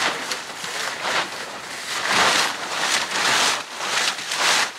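Plastic tarp and tent fabric rustling in repeated noisy swells as someone moves through the tent.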